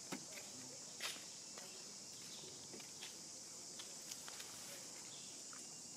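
Steady high insect hiss, with scattered crisp clicks and crackles from a macaque picking through dry leaves and chewing food. The loudest click comes about a second in.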